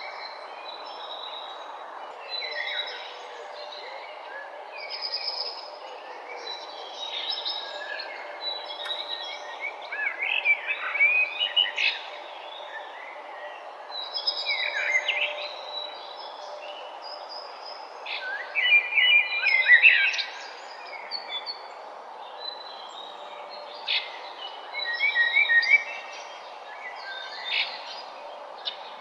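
Morning ambience of several songbirds chirping and singing in overlapping calls, busiest in bursts about a third and two-thirds of the way through, over a steady low background hum of outdoor noise.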